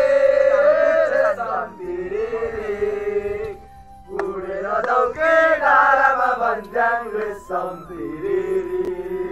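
A group of men singing a Nepali folk song together, in phrases with long held notes and short breaks between them.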